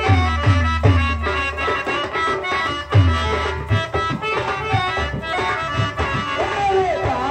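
Live folk theatre music: a reed instrument, harmonium-like, plays a melody over hand drums, with a dholak-style bass drum whose strokes slide down in pitch, about two a second for the first half.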